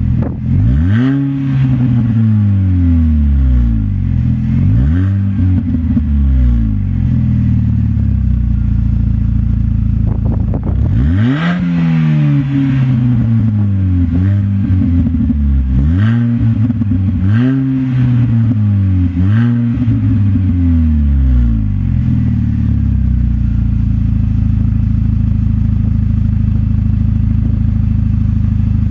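Mini Cooper S engine heard through a Garbino aftermarket exhaust with twin centre tailpipes, revved in quick blips over and over, with one higher rev about eleven seconds in. For the last several seconds it settles to a steady idle.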